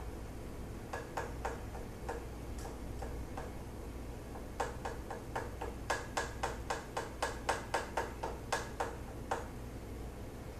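A spoon clicking against the inside of a small container while melted crayon-and-coconut-oil lipstick mix is stirred: a few scattered clicks, then a steady run of about three to four clicks a second for several seconds.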